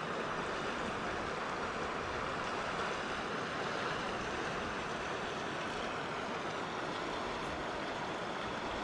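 The Colorado River flowing, a steady even rush of moving water.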